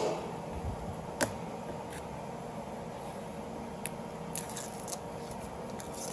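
Scattered light clicks and scrapes of plastic door trim parts being handled, the sharpest click about a second in, over a steady faint hum.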